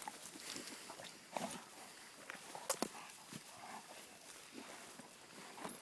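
Coon hounds moving about: faint rustling and scattered sharp clicks, the sharpest about one and a half and three seconds in.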